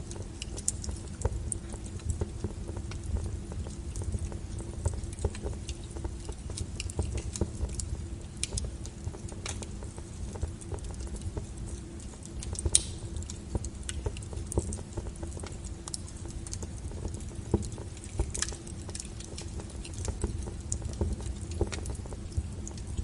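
Wood fire burning with a steady low rumble and scattered sharp crackles and pops, a louder pop near the middle.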